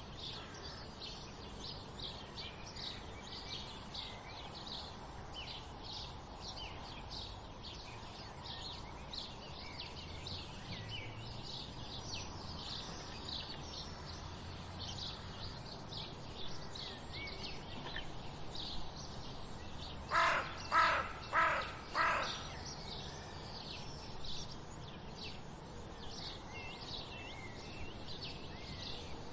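Dawn chorus of sparrows chirping continuously in quick, high, overlapping chirps. About two-thirds of the way through, a larger bird gives four loud, lower-pitched calls in quick succession.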